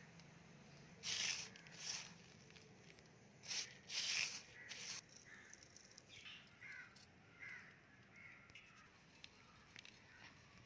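A crow cawing about five times in the first five seconds, harsh and loud, followed by fainter short calls.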